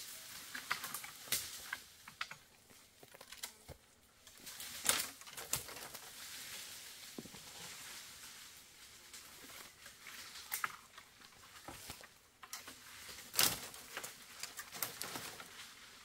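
Irregular crackling and snapping of dry twigs and brush, with rustling between; two sharper snaps stand out, about five seconds in and near the end.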